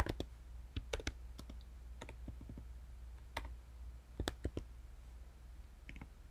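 Computer keyboard typing in short, irregular bursts of a few keystrokes with pauses between, over a faint steady low hum.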